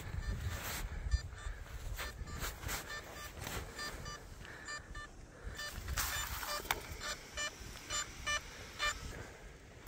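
Crashed quadcopter drone lying in snow, sounding a rapid run of short high locator beeps, about three a second, from its Find My Drone feature. Snow crunches as it is dug out and picked up.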